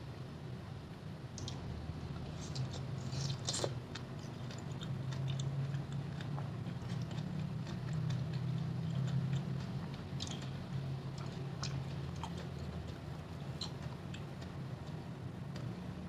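Close-miked chewing and biting of crisp raw fruit pieces from rujak buah, with wet crunches and mouth clicks scattered throughout, over a low steady hum.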